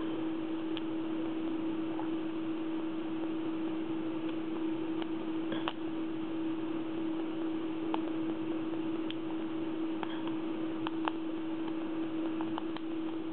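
Scattered faint metallic clicks of a hook pick working the pins inside a Roper lock cylinder, a few seconds apart, over a steady hum and hiss.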